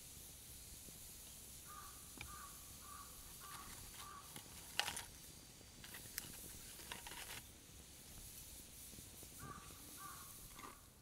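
A crow cawing in a string of about five calls, then three more near the end. A sharp click comes about five seconds in, with a few lighter clicks and rustles after it.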